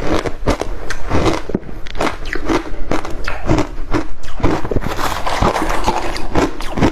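Close-miked crunching of crushed ice being bitten and chewed, a rapid irregular run of sharp cracks and crackles.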